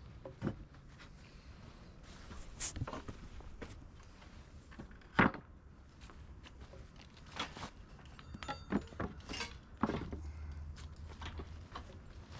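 Scattered metallic clinks and knocks of a wrench and bolt hardware while fastening a wheel onto a miter saw stand's frame, with one sharp knock about five seconds in and a short metallic ring later.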